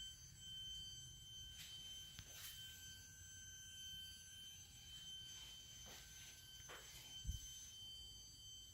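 Bumpboxx UpRock V1 boombox speaker giving off a faint, steady high-pitched whine with all volume knobs turned off: a fault in the unit. There are a few faint short sweeps and a low thump about seven seconds in.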